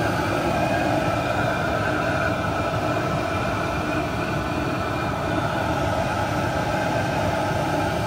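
Chinese 5 kW diesel air heater running on startup. Its fan and burner make a steady whir, with a few constant tones over a rushing noise, as the heater begins blowing warm air.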